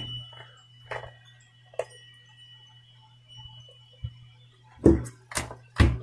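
Several sharp clicks and knocks of alligator clip leads being handled and clipped onto a small DC motor's terminals, the loudest two near the end. They sit over a steady low hum, with a faint high tone for the first few seconds.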